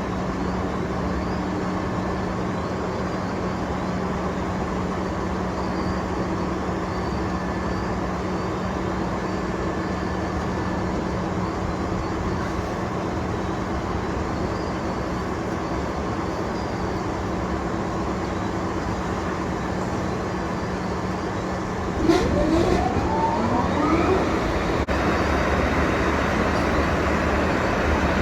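KU 300/23 bucket-wheel excavator at work mining brown coal: a steady mechanical hum with a constant low drone. About 22 seconds in there is a sharp knock, then a rising whine, and the machine runs louder from then on.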